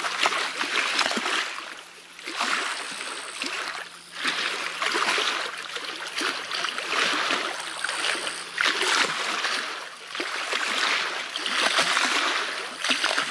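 Small waves splashing and lapping against the side of a small boat on choppy water, swelling and fading every second or two.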